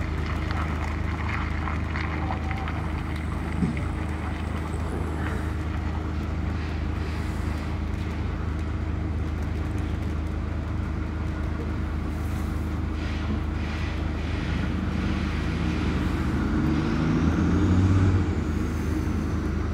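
Diesel engine of a lorry towing a fairground ride trailer away: a steady low drone that rises in pitch and grows louder in the last few seconds as it pulls off.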